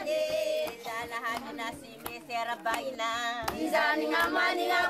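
A group of voices singing, with hand clapping.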